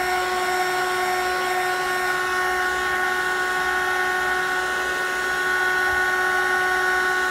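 Small electric blower motor running steadily: an even high whine over a rush of air.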